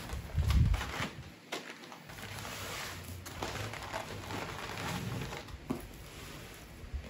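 A brown paper grocery bag set down on a table with a thump about half a second in, then crinkling and rustling of the stiff paper and cardboard boxes as they are handled, with a few small knocks.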